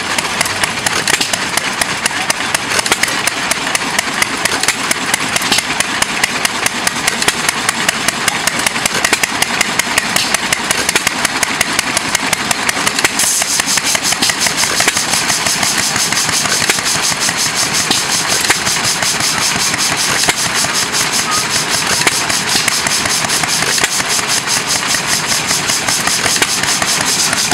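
John Deere hit-and-miss engine running, a quick even beat of sharp firing and valve knocks. About halfway in, a brighter hiss joins it.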